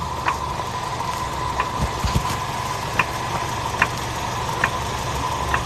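A vehicle engine idling steadily, with sharp clicks about once a second and a couple of dull knocks about two seconds in.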